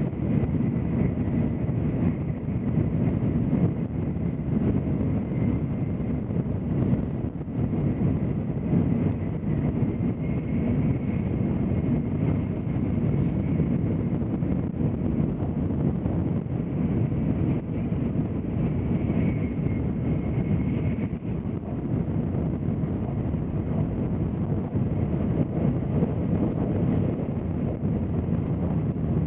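Steady low rumble and rush of a Tokaido Shinkansen bullet train running at speed, heard from inside the passenger car, with a faint high whine that comes and goes.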